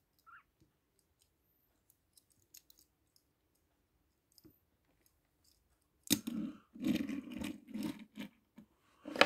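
Small die-cast toy cars handled on a wooden desk. Faint clicks at first, then about six seconds in a run of knocks and scrapes as a car is set down among the others, ending in one sharp click near the end.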